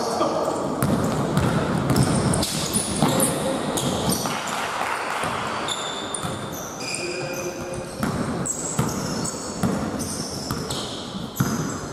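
Sneakers squeaking on a hard court floor and a ball bouncing in a large hall, during a game, with scattered voices.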